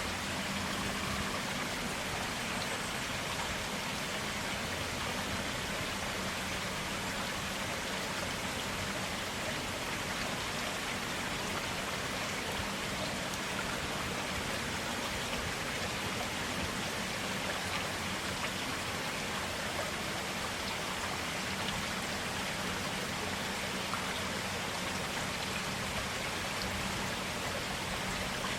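Clear forest stream water flowing steadily, an even, unbroken rush.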